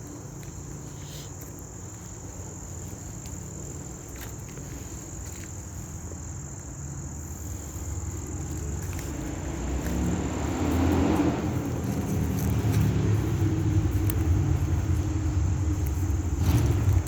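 Insects trill steadily at a high pitch while a car approaches and passes, its rush of road noise peaking about eleven seconds in; a low rumble stays loud after it.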